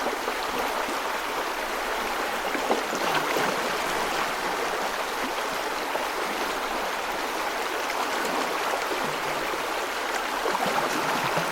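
Steady rush of running water, as of a stream, with no animal calls.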